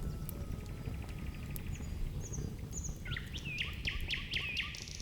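Songbird singing: a brief fast trill and a few short high chirps, then from about halfway a run of quick down-slurred whistled notes, about four a second, over a low steady rumble.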